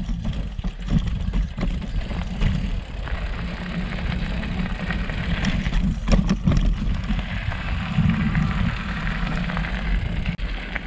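Mountain bike ridden over a rocky trail section, heard through a handlebar-mounted camera: a continuous low rumble of tyres and rattling bike, with a few sharp knocks about six seconds in.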